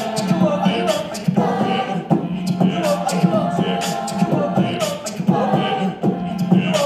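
A cappella group singing with live beatboxing: layered voices over a held sung bass note, with vocal percussion keeping a steady beat.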